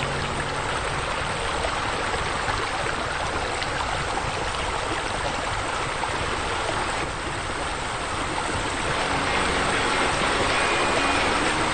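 Steady rushing, splashing water from a pool and spa's water features, growing slightly louder near the end.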